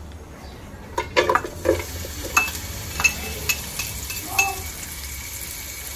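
Chopped onion and garlic tipped into a pot of hot oil and scraped out of a bowl with a knife. A series of sharp clinks of the blade against the bowl, some of them ringing briefly, comes between about one and four and a half seconds in, over a light sizzle of the oil.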